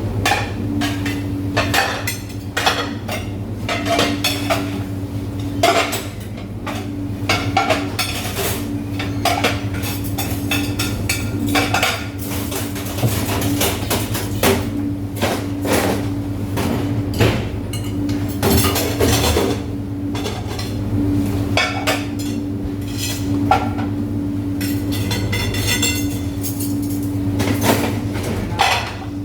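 Dishes, pots and cutlery clattering and clinking as they are handled at a kitchen dishwashing station, many knocks in quick, uneven succession over a steady low machine hum.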